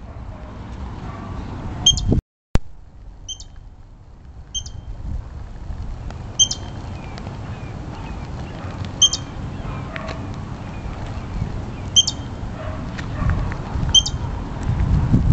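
Short, high-pitched chirps repeating every one to three seconds over a steady low rumble, with a brief dropout about two seconds in.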